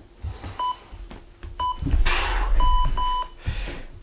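Interval timer beeping a countdown: short beeps about a second apart, then two longer beeps close together as the work period starts. A burst of rustling movement comes just before the long beeps.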